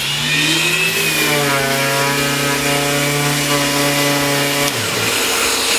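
An electric random orbital sander switches on and sands a board. About a second later the Festool CT 26 E dust extractor starts up by itself on its tool-triggered auto mode, climbing to a steady whine at turned-down suction. Near the end the sander winds down and stops while the extractor keeps running to clear the dust from the hose.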